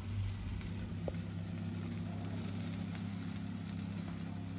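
A motor running with a steady low hum.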